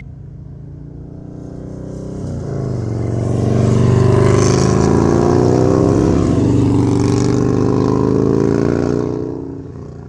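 A motor vehicle engine running. It grows louder over a couple of seconds, holds steady with its pitch creeping slightly upward, then fades away near the end.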